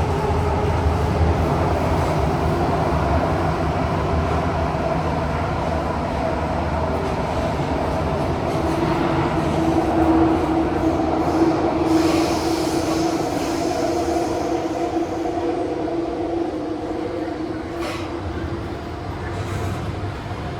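Kawasaki & CRRC CT251 metro train heard from inside the carriage while running between stations: steady rolling noise with humming tones from the running gear. One tone grows stronger about halfway through, and there is a brief hiss and a short click near the end.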